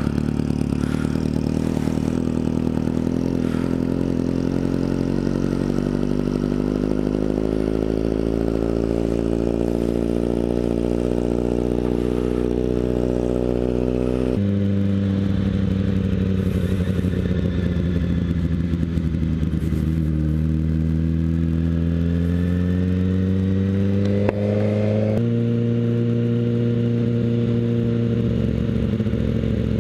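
2013 Kawasaki ZX-6R's 636 cc inline-four running through a Graves Motorsports slip-on exhaust with the decibel killer removed. The engine note climbs steadily for about fourteen seconds, changes abruptly, dips and rises again, then steps abruptly once more near the end.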